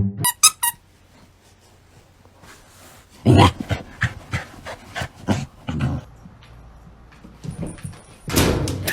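A dog vocalising: a few short high cries near the start, then a run of short barks about three to six seconds in.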